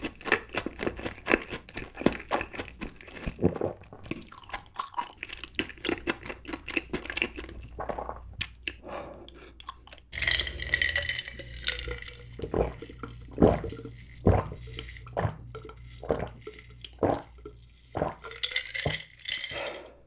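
Close-miked chewing of a cheesy mozzarella corn dog: wet, sticky mouth clicks and squishes. About halfway through, the sound changes to liquid sounds and spaced gulps as a drink is taken.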